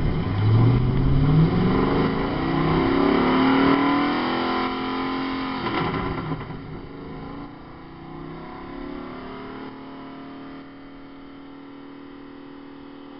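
TVR V8 sports car engine, stationary, revved up over the first few seconds so that its note climbs, then falling back about six seconds in and settling to a steady, much quieter idle.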